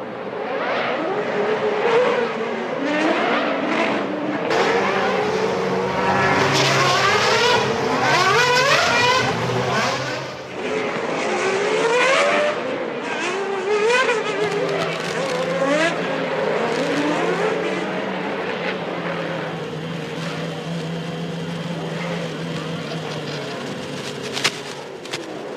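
Early-1990s Formula One cars' high-revving racing engines, several at once, their pitch rising and falling as they accelerate, change gear and brake past. The busiest, loudest stretch of revving comes in the first half.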